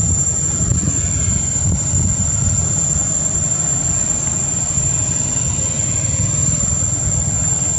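Steady, high-pitched insect chorus holding one unbroken tone, over a low, unsteady rumble.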